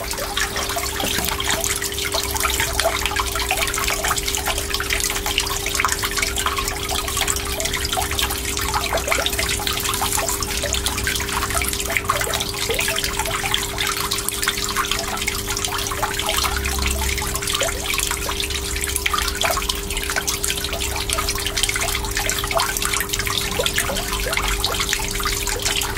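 Water running and trickling steadily, with many small drips and splashes, over a steady low hum.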